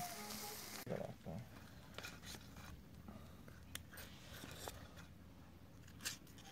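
Game-bird kebabs sizzling over charcoal, cut off abruptly under a second in. Then faint scattered clicks and light scrapes of a metal skewer and a knife against a plate as the roast birds are slid off.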